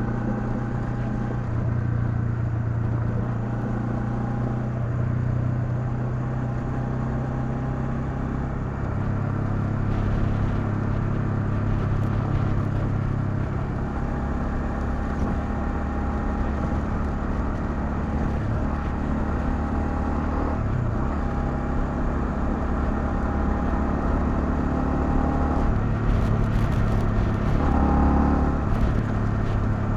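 Honda CL250 motorcycle engine running under way, its pitch stepping up and down several times as the revs change.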